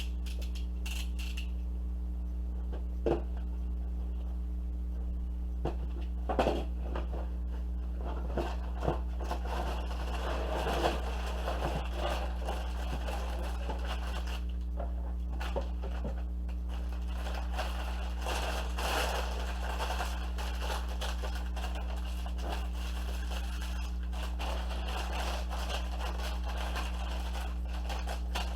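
A cardboard LEGO box being opened and its contents handled: scattered taps and clicks, then stretches of rustling, scraping and crinkling packaging, over a steady low electrical hum.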